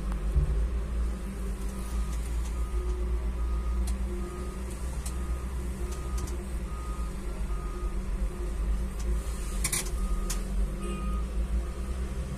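Hyundai wheel loader's diesel engine running steadily, heard muffled through a window. From about two seconds in, its reversing alarm beeps evenly, roughly every two-thirds of a second, and a couple of sharp clicks come near the end.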